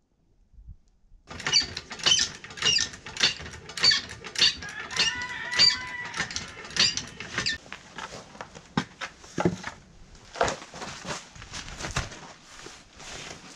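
Hydraulic floor jack being pumped by its long handle to lift a four-wheeler: a run of sharp metallic clicks about two a second, with a short squeak partway through. About eight seconds in, the pumping stops, giving way to scattered knocks and clicks of tools and parts being handled.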